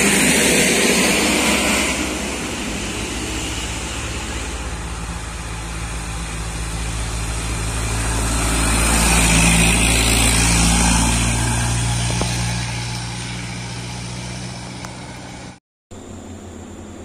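A car passes first, then a loaded Isuzu light truck's diesel engine labours uphill, putting out dark exhaust smoke. Its low drone grows louder as the truck comes by, near the middle, then fades. The sound briefly drops out near the end.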